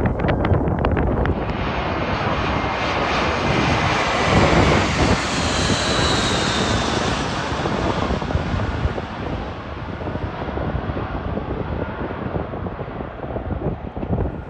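Jet airliner passing overhead: its engine noise builds, peaks about five seconds in with a high whine falling in pitch, then fades away. Wind buffets the microphone underneath.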